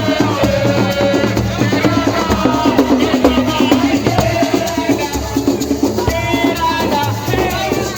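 Music with fast, dense drumming and a singing voice over it.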